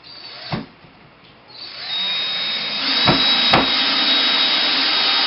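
Power drill-driver running steadily with a high whine, driving a screw into a wooden brace. It starts about a second and a half in, gets louder about three seconds in, and has a couple of sharp knocks along the way.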